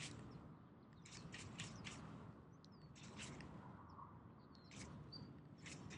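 Near silence with a few faint, short bird chirps, and brief soft ticks in small clusters every second or so.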